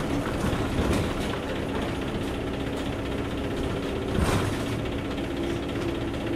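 Inside the cabin of an Isuzu KC-LV380L route bus: its V8 diesel running with a steady drone as the transmission is taken out of fifth gear into neutral. A brief burst of noise about four seconds in.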